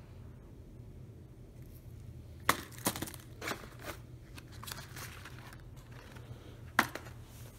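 Fireworks and their cardboard packaging being handled: rustling and crinkling broken by a few sharp knocks, the loudest about two and a half seconds in and another near the end.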